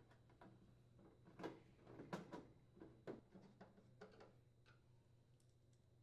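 Faint, irregular clicks and light metallic taps of a screwdriver turning a screw into a microwave's sheet-metal cabinet, about a dozen over the first five seconds.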